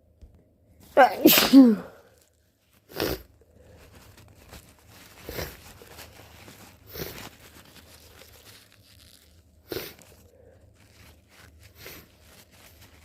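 A person with the flu sneezing loudly about a second in, with a voiced cry that falls in pitch, then several shorter, quieter breathy bursts spaced a couple of seconds apart.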